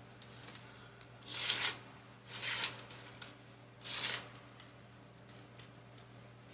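Italian-style stiletto slip-joint knife slicing through paper in three short strokes, about a second apart.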